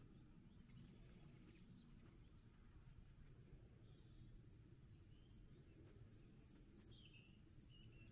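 Near silence: faint outdoor background noise with a few short, high, distant bird chirps, most of them near the end.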